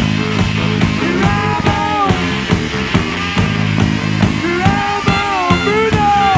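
Live rockabilly band playing: drums and bass keep a steady beat under electric guitar, while a lead line of bending, sliding notes rises over them about a second in and again near the end.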